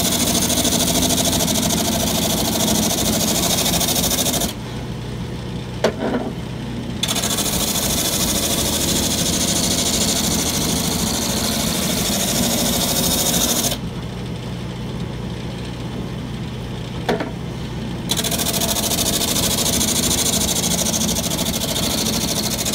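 Homemade lathe-driven drum sander grinding wood in three long passes, each a loud steady rasping noise. Between passes the noise drops to the motor's steady low hum, with a light knock in each lull.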